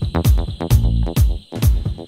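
Background pop music with a steady dance beat, a kick drum about twice a second.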